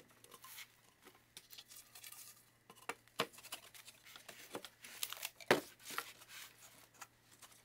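Wooden drawer parts being handled and pushed together in a dry fit: scattered light clicks and taps of wood on wood, with a sharper knock about five and a half seconds in, over a faint steady hum.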